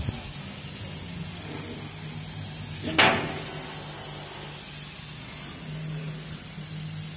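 CO2 laser cutting machine running while it cuts MDF, with a steady low hum and high hiss from the machine. There is one sharp knock about three seconds in.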